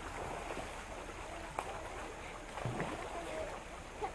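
Shallow river running over rocks: a steady rush of water, with faint voices now and then.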